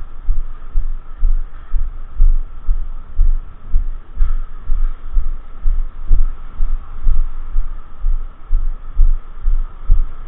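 Low, irregular thumps on the action camera's microphone, about two a second, over a faint steady hum.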